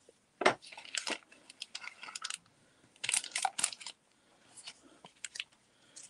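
Cardstock pieces and craft dies being gathered up and moved aside by hand: irregular rustling and crinkling with light clicks, coming in a few short bunches.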